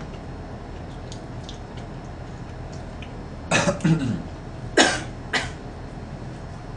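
A woman coughing: a throaty, throat-clearing cough about three and a half seconds in, then two short, sharp coughs about a second later.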